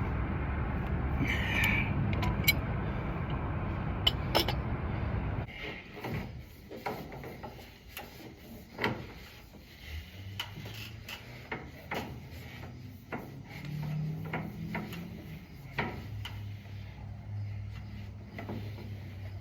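A steady low running noise that stops about five seconds in, followed by scattered knocks, clicks and rubbing, like objects and tools being handled.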